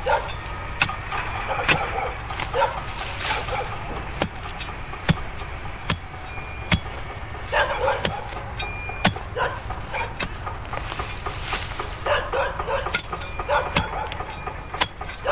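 A narrow-bladed digging spade (thuổng) chopping repeatedly into hard soil, with sharp strikes at irregular intervals. A dog barks now and then in the background.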